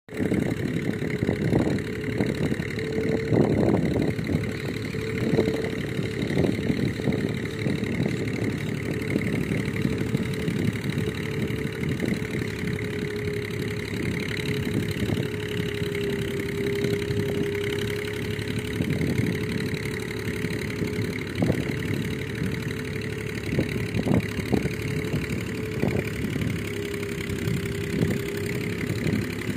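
Massey Ferguson 135 tractor's three-cylinder diesel engine running steadily under load as it works a waterlogged field, a constant drone that wavers slightly in pitch.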